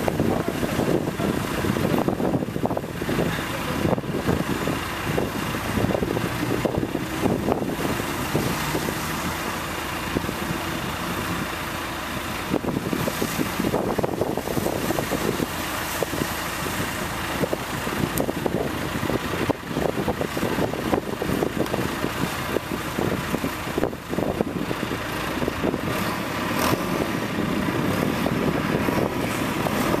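Backhoe loader's diesel engine running steadily as the machine moves back and forth clearing snow.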